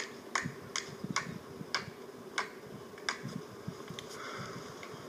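One man clapping his hands slowly and alone, a mocking round of applause: about seven claps that space out and stop about three seconds in.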